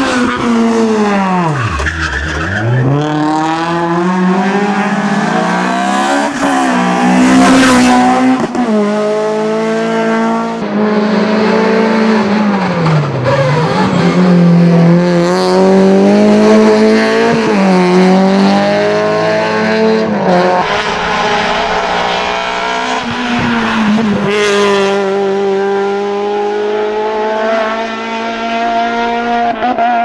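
Race car engines revving hard up a hillclimb stage through tight bends. The pitch drops sharply on braking and downshifts, then climbs again under full acceleration through the gears, with some tyre squeal.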